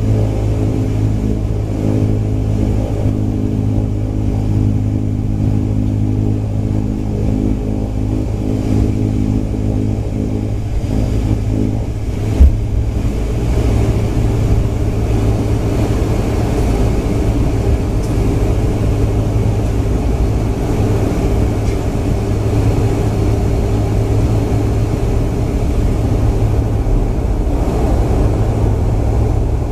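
De Havilland Canada Dash 8-300's Pratt & Whitney PW123 turboprops and propellers running, heard inside the cabin: a steady low drone with a hum of several tones. About twelve seconds in there is a sharp knock, after which the drone turns rougher and spreads higher.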